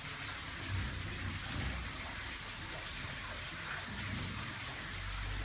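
Heavy rain pouring down, a steady hiss of falling water.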